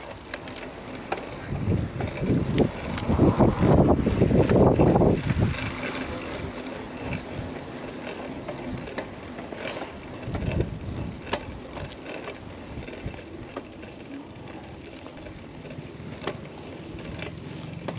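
Mountain bike riding over a rough trail, with wind buffeting the microphone in loud gusts for the first five seconds or so, then a steadier rolling noise with scattered clicks and rattles from the bike.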